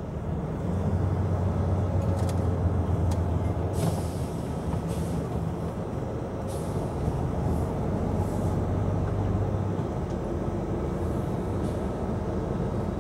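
Truck engine running steadily with a low drone, heard from inside the cab while driving. A few short hisses come through in the middle.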